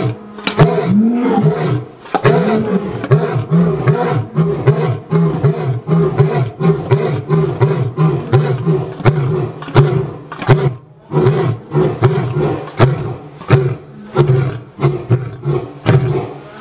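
Male lion roaring through a full bout: a long roar that rises and falls near the start, then a long series of short, low grunts in quick, even succession, broken by a brief pause about eleven seconds in.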